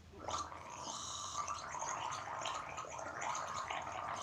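A woman gargling lukewarm salt water: one unbroken gargle of about four seconds that starts just after the beginning and cuts off near the end.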